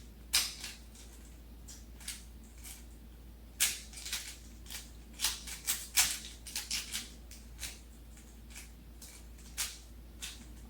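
Plastic Rubik's Cube being turned fast by hand: irregular clicks and clacks of the layers snapping round. They come in quick flurries from about three and a half to seven seconds in, and are sparser before and after.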